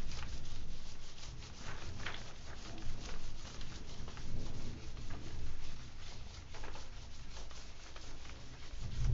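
A whiteboard being wiped clean with an eraser: a run of irregular rubbing strokes across the board.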